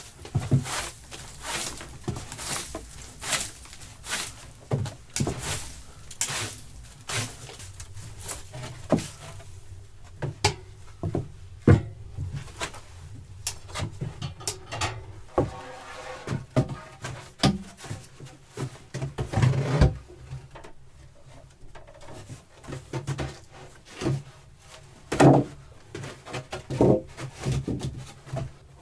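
Irregular wooden knocks, thuds and clatter from wood being handled and struck during construction work, with a low steady hum underneath.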